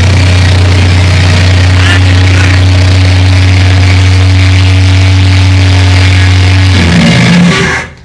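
Live rock band's heavily distorted, amplified drone: a held low note that runs steady and very loud, overloading a phone microphone. The drone stops about seven seconds in, and the sound briefly drops away near the end.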